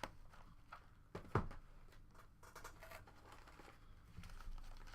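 Faint handling sounds of items and packaging being moved: scattered light clicks and rustling, with one sharper knock about a second and a half in.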